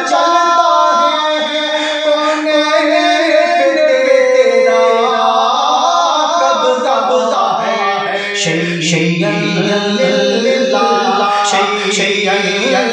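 A man's solo voice singing a devotional Urdu praise song to Abdul Qadir Jilani, unaccompanied, in long held notes that bend and waver in pitch.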